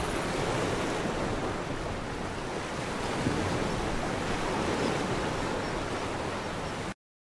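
Steady rush of water circulating in a reef aquarium, which cuts off abruptly near the end.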